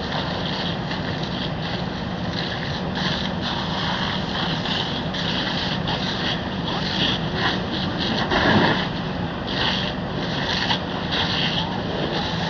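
Steady engine hum under a rushing hiss that flares up again and again in short bursts, loudest about eight and a half seconds in, at a burning car.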